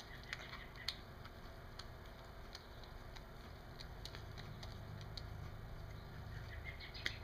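Faint, scattered small clicks and ticks of a Phillips screwdriver turning screws out of a small plastic project box, with the box being handled, over a low steady hum.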